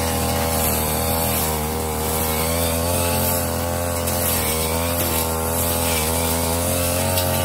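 Ogawa CC33 two-stroke brush cutter running near full throttle with a metal blade, its engine note dipping and recovering slightly as the blade cuts through overgrown lemongrass and brush.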